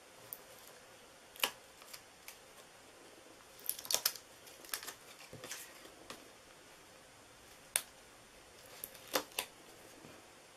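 Hands working a cardstock box and strips of double-sided tear-and-tape adhesive: faint, scattered light clicks and paper crackles, a cluster of them about four seconds in and a few sharp clicks later on.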